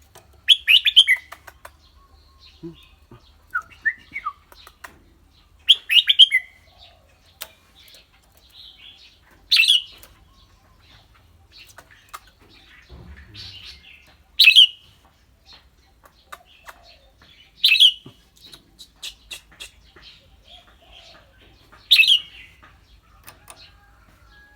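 Red-whiskered bulbul singing short, clear, loud phrases, six of them a few seconds apart, with faint chips in between.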